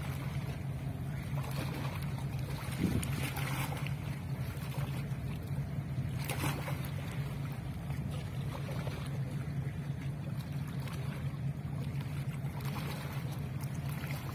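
Steady low drone of a boat engine, with wind and water noise and a brief bump about three seconds in.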